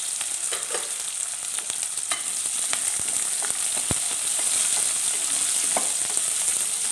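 Chopped onions sizzling in hot oil in an aluminium pressure cooker, being sautéed and stirred with a wooden spatula, with a steady hiss and scattered short clicks and knocks.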